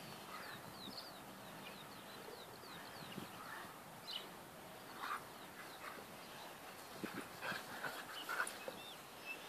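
Two Bernese mountain dogs playing, heard faintly: scattered short dog sounds, more frequent in the second half, with a run of small high chirps in the first few seconds.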